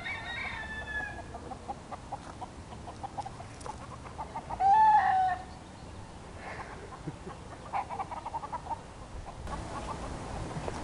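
Chickens clucking in runs of short notes, with a few calls among them. The loudest is one call about five seconds in.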